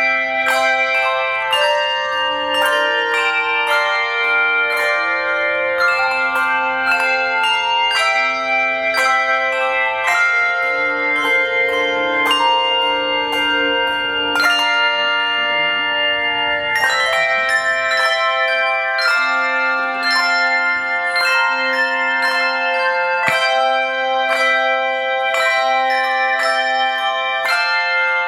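Elementary school handbell choir playing a tune: bells struck one after another in a quick, steady stream, each note ringing on, with a slower line of lower bells sounding beneath the melody.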